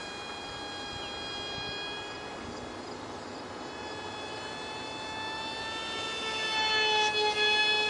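Ultra micro foam RC jet's 8 mm motor and direct-drive propeller whining in flight, a steady high-pitched buzz with slight shifts in pitch that grows louder about six seconds in as the plane passes closer.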